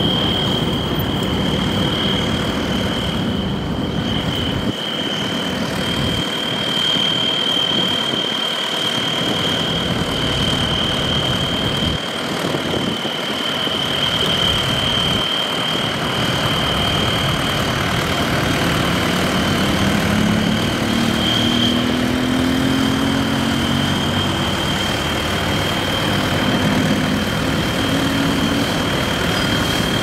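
Farm tractor's diesel engine running as it drives a rear-mounted rotary sweeper brush that sweeps dust off the road, with the hiss of the brush and a steady high whine over it. An engine note rises in the second half.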